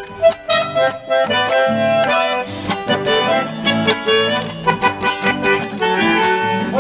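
Bandoneón and guitar playing a chacarera santiagueña, the bandoneón carrying sustained melody notes over the guitar's strummed rhythm.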